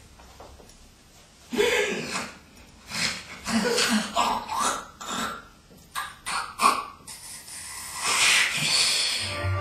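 Non-verbal human vocal sounds: a string of short breaths, hisses and brief voiced cries at an uneven pace, ending in a longer breathy hiss about eight seconds in.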